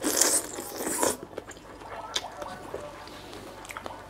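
Mouth-eating sounds from someone eating papaya salad with raw blue crab: a loud wet slurp in the first second, then softer chewing and small scattered clicks.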